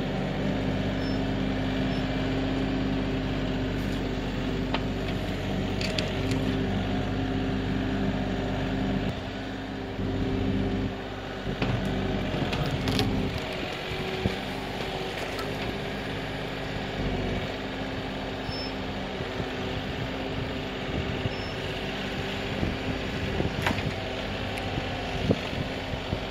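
Kioti NX6010 tractor's diesel engine running steadily under working load, its level dipping and recovering a few times around the middle. A few sharp knocks stand out over it.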